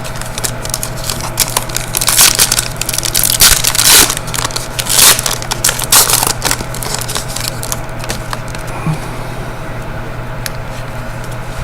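Crackling and crinkling of a hockey card pack's wrapper being torn open, with cards being handled. The crackling is densest in the first half and thins out after that.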